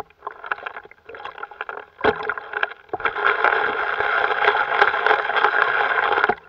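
Water sloshing and splashing in a green plastic gold pan as it is dipped in and out of a tub and shaken, washing the lighter gravel and sand over the riffles. A few short sloshes come first, then a steady washing sound from about three seconds in that cuts off sharply near the end.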